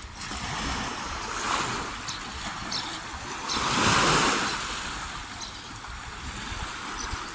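Steady rushing noise of open water and wind on the microphone, swelling loudest about four seconds in, with a few faint short high sounds.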